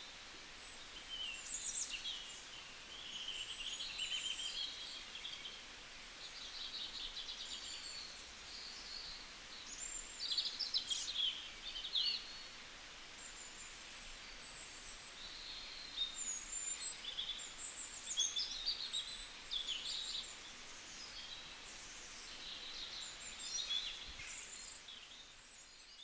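Several songbirds singing and calling together: quick chirps, rapid trills and short whistled up-and-down notes, high-pitched, over a faint background hiss.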